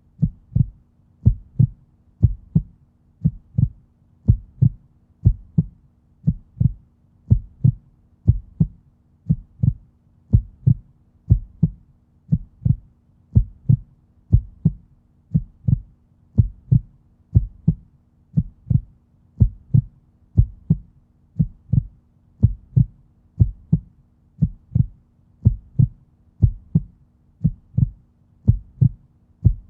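Human heartbeat, a steady, even rhythm of low double thuds (lub-dub), about one pair a second.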